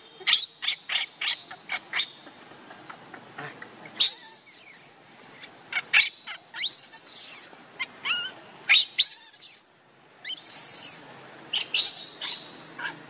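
Baby macaque crying in high-pitched distress calls: a quick run of short, sharp squeaks at first, then longer wavering screams every second or two.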